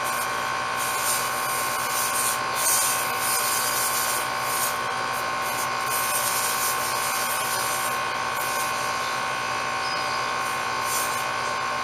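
Steady electrical hum with several fixed tones from a running air-conditioner condenser unit, with brief rustling scrapes of a rag wiping the copper line joints now and then.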